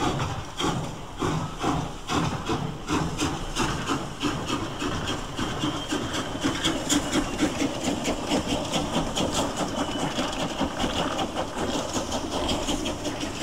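Steam locomotives, an ex-LNER A3 Pacific banked by a J36 0-6-0, starting a heavy train away: chuffing exhaust beats, slow at first and quickening steadily as the train gathers speed, with steam hissing throughout.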